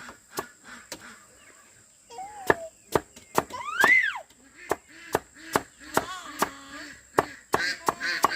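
Rhythmic chopping, sharp blade strokes about two a second. High, gliding cries come in over the strokes around the middle and again near the end.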